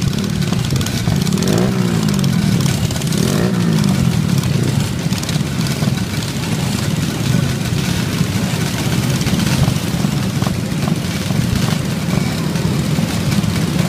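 Many minibike small engines running together in a crowd, with an engine revving up and down twice in the first few seconds.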